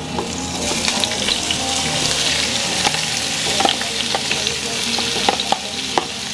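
Raw shrimp sizzling as they go into a hot frying pan: a steady frying hiss that swells over about the first second, with a few light clicks.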